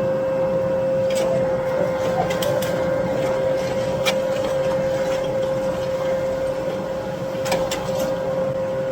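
Farm machinery running with a steady high whine over a noisy rumble, with a few sharp clicks and taps.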